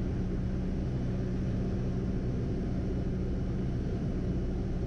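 Piper PA-28's single piston engine and propeller droning steadily on final approach, heard inside the cockpit.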